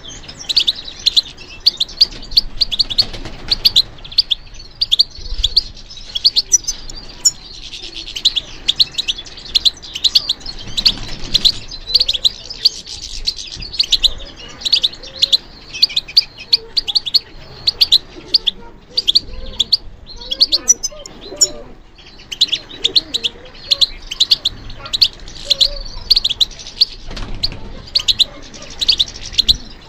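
European goldfinch singing: a long run of fast, high twittering chirps and trills, with a short break about twenty seconds in.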